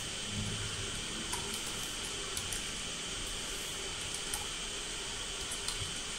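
Steady background hiss of the recording, with a faint, steady high-pitched tone and a few faint, scattered clicks.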